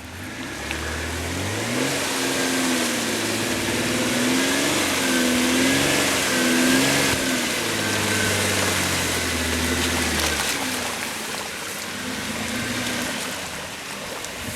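Off-road SUV engine revving up and down under load, its pitch rising and falling several times, with a steady high whine running alongside; the revving eases off near the end.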